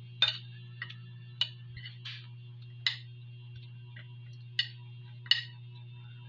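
A metal spoon clinking against a ceramic dinner plate: about eight sharp, irregular clinks, each with a brief ring. A steady low hum runs underneath.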